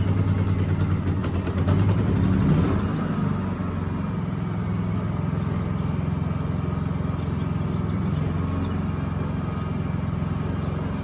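Champion 4650 inverter generator engine running just after its first pull-start on choke: it runs harder for the first few seconds, then settles about three seconds in to a steady, quieter note. A quiet running sound for a generator, described as super quiet.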